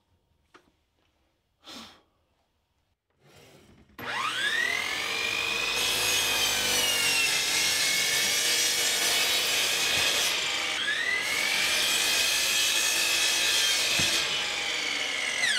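Hitachi sliding compound miter saw switched on about four seconds in, its motor whine rising as it spins up, then crosscutting plywood with a steady cutting noise. The whine dips and climbs again partway through, and near the end it falls away as the motor winds down.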